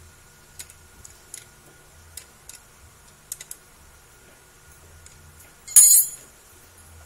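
Light metallic clicks and taps from hand tools on metal parts, then a louder short metallic rattle about six seconds in.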